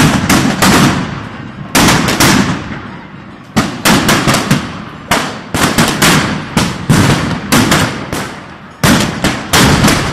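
Firecrackers and fireworks going off in a street: loud sharp bangs in quick clusters of several at a time, with brief lulls between, each bang ringing off the surrounding buildings.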